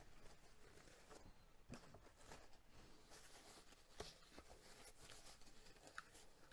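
Faint rustling of a thin white wrap being pulled off a small glass bowl piece by hand, with a few soft clicks.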